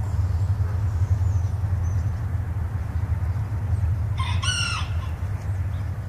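A steady low rumble under everything, and about four seconds in a single short chicken call with a bending pitch, lasting under a second.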